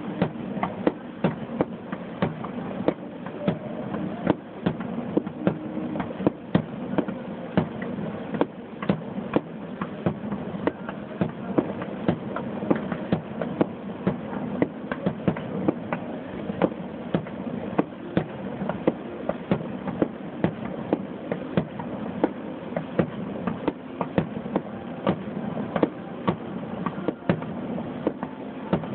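Fireworks finale: aerial shells bursting with many sharp bangs, irregularly one or two a second, over a steady background noise.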